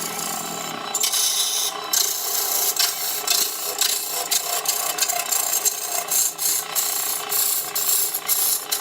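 A woodworking tool rasping and scraping against wood, in uneven bursts that get louder about a second in.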